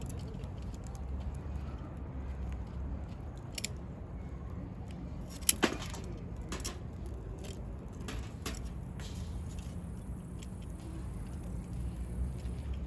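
Wood campfire crackling, with scattered sharp pops from the burning firewood; the loudest is a quick double pop about halfway through. A steady low rumble runs underneath.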